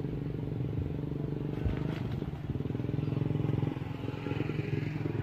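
An engine running steadily at idle with a fast, even chugging, and a brief clatter about two seconds in.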